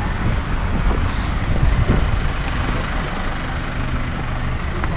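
Steady vehicle noise: an engine running with road noise, heard at an even level.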